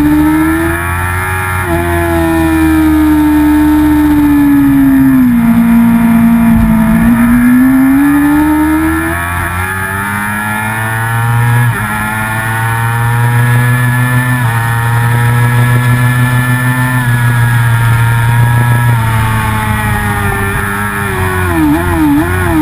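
Racing motorcycle engine at high revs, heard from a camera mounted on the bike at race pace. The engine note drops about five seconds in and climbs again, changes pitch in steps a few times midway, and warbles quickly near the end.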